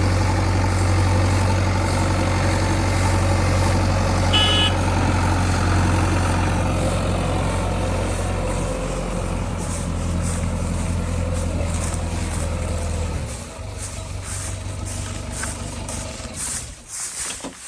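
Heavy diesel engine of earth-moving machinery running loud and steady, growing quieter about 13 seconds in. A brief high-pitched tone sounds about four and a half seconds in.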